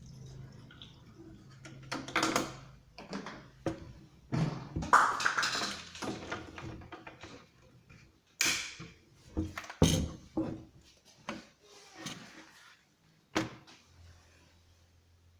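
Handling noises from an unboxing: a string of irregular knocks, thumps and clicks with bursts of rustling, loudest about five seconds in and again near the middle, then thinning out toward the end.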